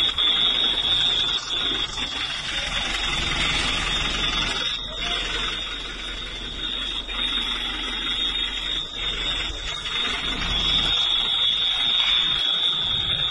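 An electronic alarm sounding one steady, unbroken high-pitched tone over rough background noise.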